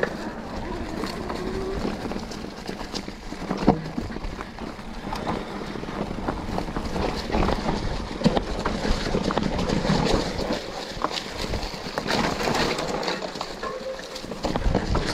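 Specialized Turbo Levo electric mountain bike riding down a dry dirt singletrack: tyres rolling over dirt and roots, with constant rattling and clicking from the bike and one harder knock about four seconds in. Wind buffets the microphone.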